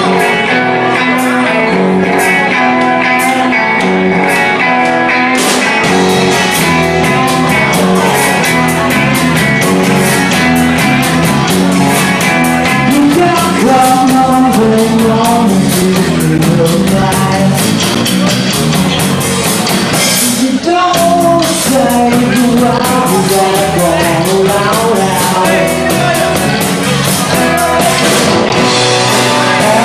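Live rock band playing: acoustic and electric guitars over a drum kit, with singing. The drums and cymbals come in fully about five seconds in.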